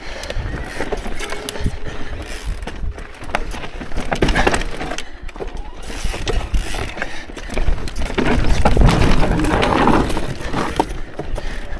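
Electric mountain bike rattling over a rocky trail: the rear hub's ratchet clicks, and the chain and frame clatter irregularly over a low rumble. It grows louder and rougher about eight seconds in.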